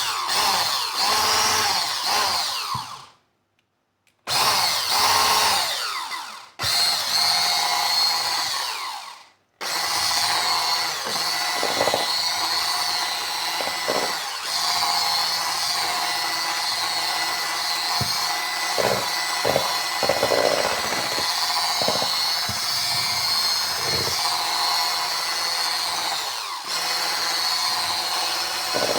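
Small electric kitchen appliance motor running with a steady whine: two short stops in the first ten seconds, then running without a break.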